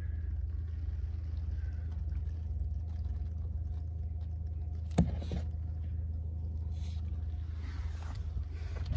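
A steady low rumble with a faint steady hum over it, and one sharp knock about five seconds in.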